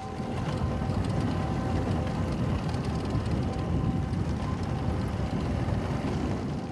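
Motorcycle ride on a dirt track: low, rough noise of wind buffeting the microphone over the running engine, starting suddenly and holding steady throughout.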